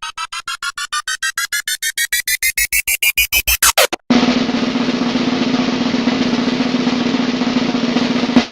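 Sound effects played back to back. First a drum-roll-like train of beats that speeds up, grows louder and rises in pitch, cutting off suddenly about four seconds in. Then a steady noisy sound with a low hum, which stops abruptly near the end.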